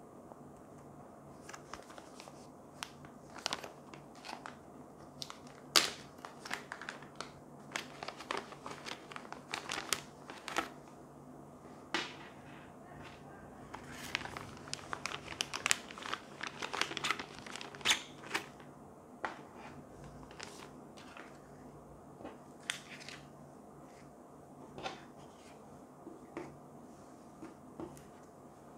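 Plastic packaging pouch crinkling and crackling as it is handled and opened by hand, in a run of sharp crackles that is densest about halfway through and thins out to a few scattered ones near the end.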